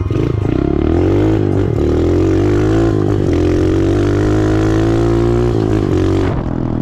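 A 125 cc pit bike's engine revving hard under throttle as it is ridden. Its pitch climbs, dips briefly twice, then drops off near the end as the throttle closes.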